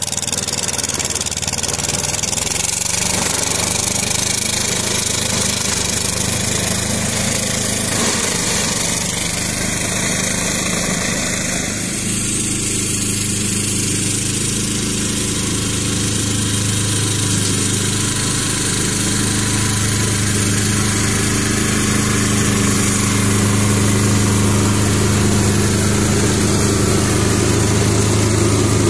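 Ferrari 95RS compact tractor's Lombardini diesel engine running steadily under load, driving its rear-mounted PTO brush cutter through weeds. The engine note is steady and loud, becoming fuller and lower about twelve seconds in as the tractor comes close.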